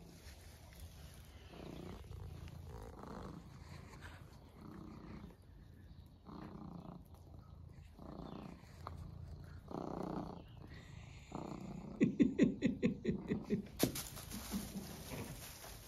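Domestic tabby cat purring close to the microphone, the purr rising and falling with each breath about every second and a half, and growing louder near the end. A brief rustle of straw or handling follows.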